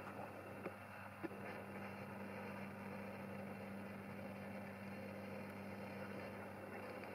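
Steady low mechanical hum, with two faint clicks about a second in.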